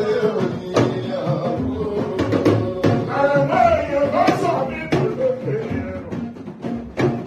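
Live praise singing: a man's voice sung through a microphone, wavering in pitch, over sharp hand-drum strokes from a talking drum.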